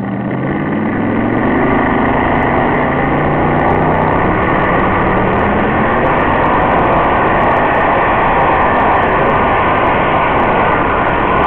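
Modified tractor-pulling tractor's engine revving up as the pull begins, rising in pitch over the first couple of seconds, then running flat out at full throttle and loud while it drags the weighted sled down the track.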